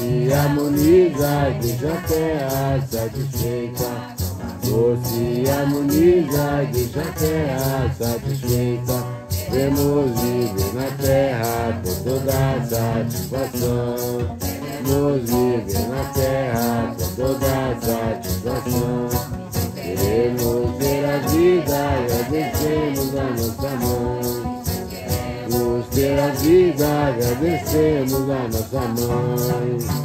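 A group sings a Santo Daime hymn in unison to strummed acoustic guitars, with maracas shaken in a steady beat.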